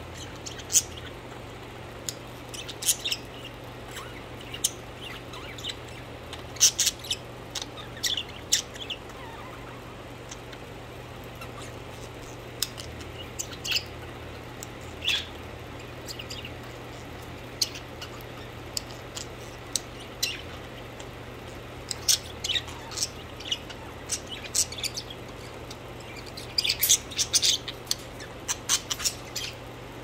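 Pet budgerigars giving short, high chirps and tweets at irregular intervals, with a busier flurry of chirps near the end, over a steady low hum.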